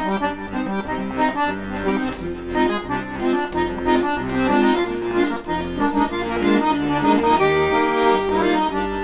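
Bayan (Russian chromatic button accordion) playing the instrumental introduction, before the singing comes in: a melody over bass and chord accompaniment with an even rhythmic pulse.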